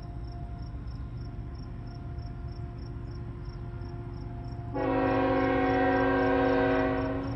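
Nathan Airchime K5HL five-chime horn on a CN GE Evolution-series locomotive sounding one long blast of about two and a half seconds, starting abruptly near five seconds in. Under it are a steady low rumble and crickets chirping.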